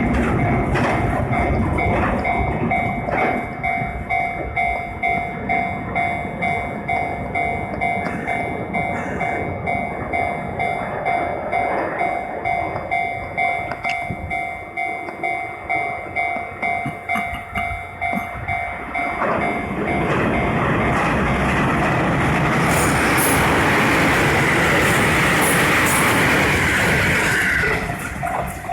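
Japanese level crossing alarm ringing in an even two-tone pulse, a little over one strike a second. From about two-thirds of the way in, an electric commuter train runs through the crossing for some nine seconds, its steady rumble and wheel hiss covering the bell.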